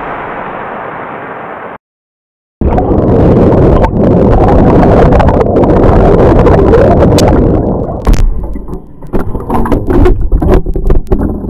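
Loud rushing, churning flood water surging through a model town, after a brief moment of silence. It breaks up near the end into splashes and sharp clattering knocks as plastic bricks and debris tumble in the water.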